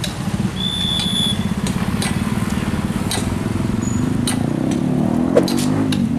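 Motorcycle engines running close by with a fast, even puttering. Near the end one engine's pitch rises as a rider pulls away.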